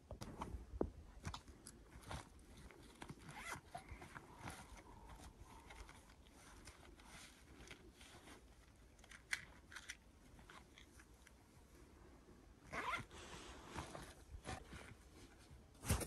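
Quiet handling noises of camping gear on snow: scattered crunches, clicks and rustles as a person kneels in snow and works with a bag and a case. A denser run of crunching comes about three seconds before the end, and a sharp crunch right at the end.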